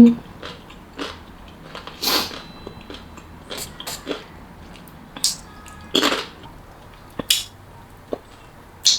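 Close-miked eating of a chamoy pickle: scattered wet mouth clicks and chewing, with a few short crunchy bites about two, six and seven seconds in.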